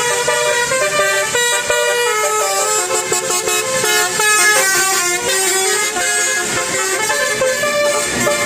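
Bus 'telolet' multi-tone air horn playing a melody: bright horn notes step up and down several times a second without a break.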